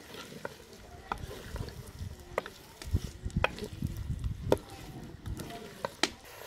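Chopped bitter gourd sizzling in ghee in a clay pot while a wooden spoon stirs and turns it, with a low rustle of the pieces being moved. The spoon gives about seven sharp knocks against the pot's side.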